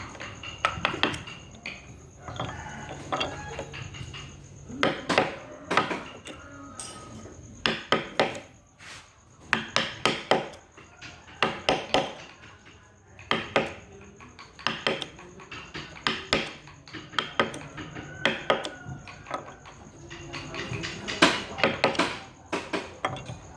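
Carving chisel being tapped into wood with a mallet: quick runs of sharp taps, a few strikes at a time, with short pauses between the runs.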